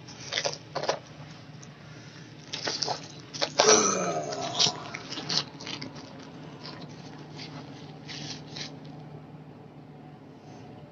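Small plastic bag crinkled and handled right against the phone's microphone: irregular rustles and clicks that die away after about nine seconds, with a short sound falling in pitch about four seconds in as the loudest moment. A low steady hum runs underneath.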